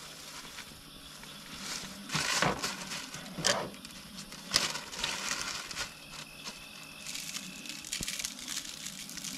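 Rustling and crinkling of a bag of kosher salt being handled, in a few short rustles, then pinches of salt sprinkled by hand onto asparagus on a paper plate.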